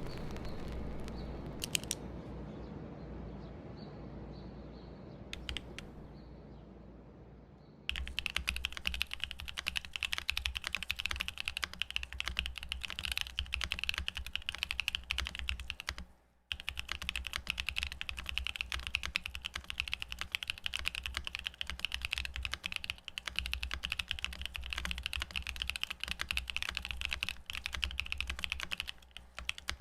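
Steady typing on a Parallel Portal 65% custom mechanical keyboard with factory-lubed Prevail Nebula switches, FR4 plate, soft 30A O-ring mount, Cherry-profile ABS keycaps, and a case filled with foam and poly-fil: a dense run of clicks and clacks. For the first several seconds, before the typing starts, there is only a fading low rumble with a few single clicks.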